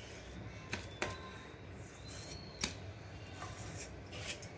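Three light knocks in a quiet room, about three-quarters of a second, one second and two and a half seconds in.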